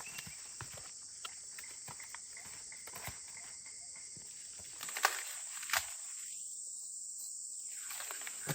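Scattered light rustles and clicks of someone moving and handling plants over a steady high insect drone, with two sharper snaps about five seconds in.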